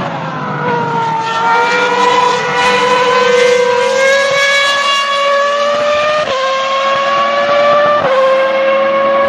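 Racing car engine accelerating hard through the gears, starting abruptly. A high engine note climbs slowly and falls back at an upshift about six seconds in, then again about eight seconds in.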